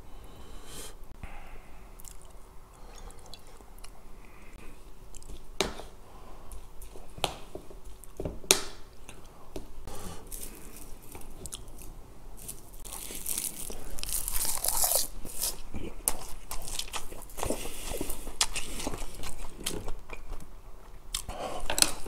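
Close-up eating sounds: wet squishing of crab meat being squeezed and rice being mixed, a few sharp clicks, then from about 13 seconds in, steady crunchy chewing of rice wrapped in roasted laver (gim).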